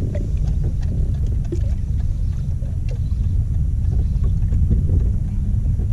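Steady low rumble of wind buffeting the microphone on an open boat, with water moving against the hull.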